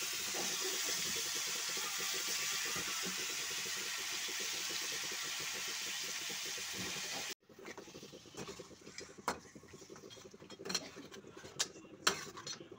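Raw pork pieces sizzling in hot oil in a pan, a steady loud hiss. About seven seconds in it cuts off abruptly, and after that come quieter sharp clicks and scrapes of a utensil against the pan as the meat is stirred.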